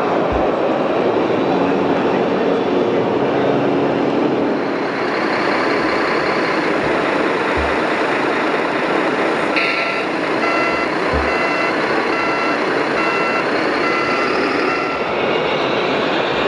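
Reversing beeper of a radio-controlled scale truck's sound module, a pulsed electronic beep sounding about one and a half times a second for roughly five seconds in the second half, over a steady background noise.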